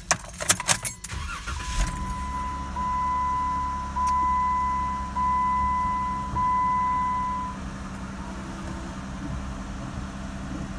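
A few clicks and knocks as the 2016 Jeep Wrangler is started, then its 3.6-litre V6 engine idling with a low, steady hum. Over it a dashboard warning chime sounds about five times in a row, roughly one a second, then stops.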